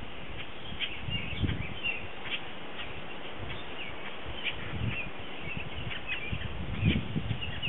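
Small birds chirping in many short, high calls, over wind rumbling on the microphone that gusts harder near the end.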